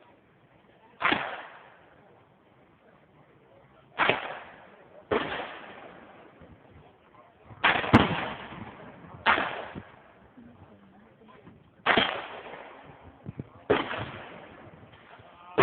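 Handgun shots fired one at a time at an irregular pace, about seven in all, spaced roughly one to three seconds apart. Each sharp crack is followed by a short echoing tail.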